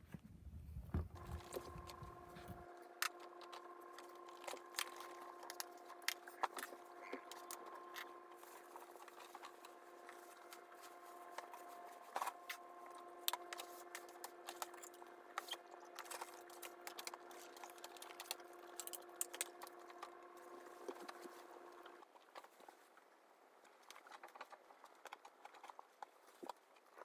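Scattered clicks and rustles of fleece bedding and plastic cage parts being handled during a guinea pig cage clean-out, over a steady humming tone that cuts off abruptly near the end.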